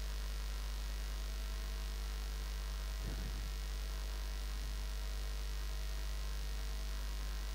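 Steady low electrical mains hum in the recording, with fainter steady tones above it and no change in level.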